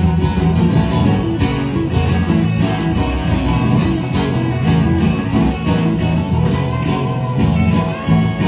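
A live band plays an instrumental passage: strummed acoustic guitar with stepping low bass notes and a steady beat, in a country/bluegrass style.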